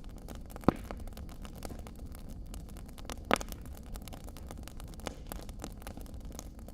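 Wood fire crackling in a stone fireplace: a steady stream of small snaps over a low rumble, with two louder pops, one under a second in and one about halfway through.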